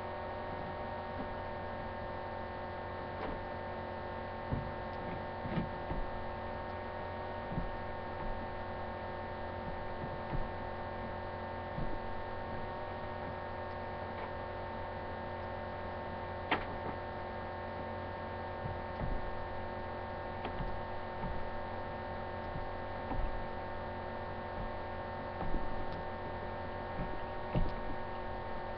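Steady electrical mains hum made of several held tones, with scattered light taps and clicks over it, a few more of them near the end.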